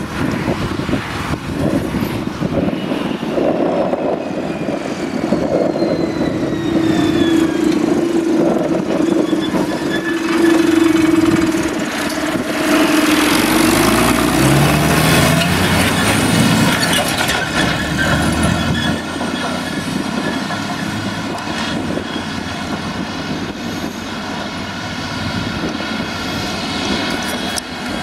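Claas Jaguar self-propelled forage harvester chopping grass from a windrow, its engine and cutterhead running steadily under load, with a tractor pulling the silage trailer alongside. A droning engine tone shifts in pitch around the middle.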